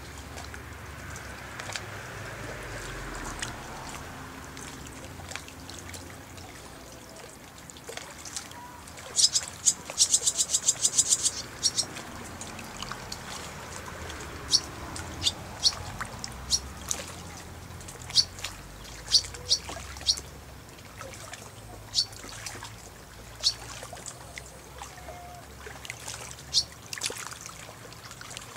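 Barn swallows calling: sharp high chirps, with a fast rattling run of notes about nine seconds in, then single chirps and short pairs scattered through the rest.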